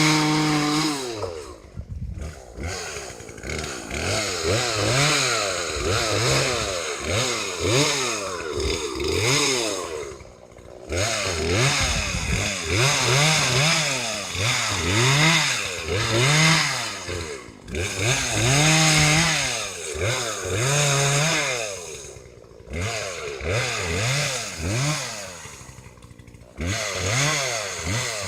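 Chainsaw revving up and down over and over while cutting wood, its pitch climbing and falling about once a second. It drops back to idle for a moment several times before revving again.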